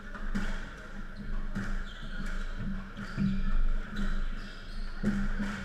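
Squash rally: the ball is struck by rackets and hits the walls about once a second, with short high squeaks from the players' shoes on the wooden court floor.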